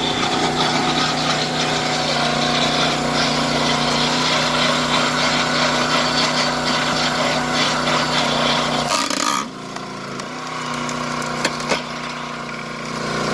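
Log splitter's small overhead-valve gas engine running under load while the hydraulic wedge forces through a log, the wood creaking and crackling as it splits. About nine seconds in the engine note dips and the sound drops quieter, then two sharp cracks.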